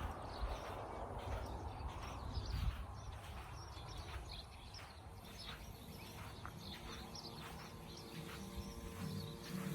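Birds chirping: short, sharp high chirps repeating irregularly a few times a second over faint outdoor background noise. A low steady hum comes in near the end.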